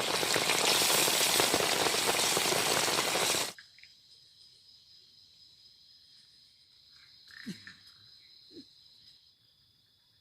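Heavy rain pouring down, cut off abruptly about three and a half seconds in. It gives way to a quiet forest with a steady high insect buzz and two short, low calls of an animal, most likely a frog, a few seconds later.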